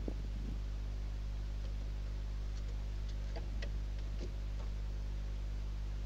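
Steady low electrical hum on the nest-box microphone, with a soft knock at the start and a handful of light ticks and taps around the middle, from barn owls moving about the wooden nest box and its entrance platform.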